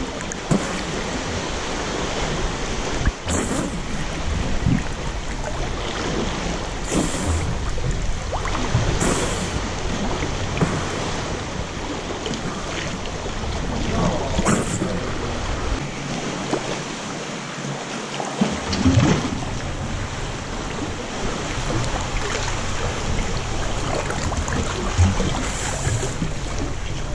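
Sea water sloshing and lapping right against a camera held at the waterline, with small waves washing over the rock ledges. A handful of sharper splashes stand out now and then.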